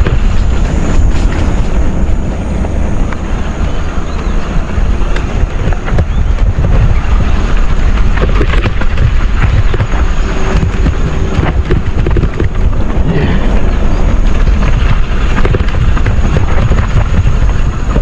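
Wind buffeting the microphone over a mountain bike rattling and knocking as it descends a rough dirt trail, loud and continuous.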